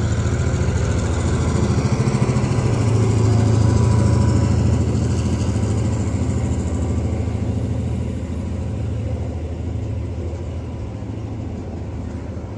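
Diesel-electric freight locomotives running under power as they pass over a level crossing, a heavy engine drone that peaks about three or four seconds in, then fades as the wagons roll by.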